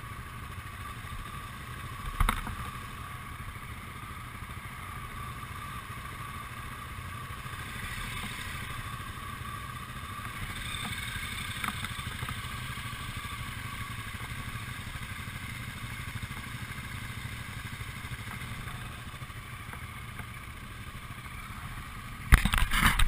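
Motorcycle engines idling with a steady low rumble. There is a short knock about two seconds in, and a sudden louder rush of noise near the end.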